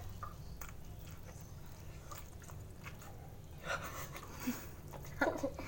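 Soft chewing and mouth sounds of someone eating, with a few faint clicks.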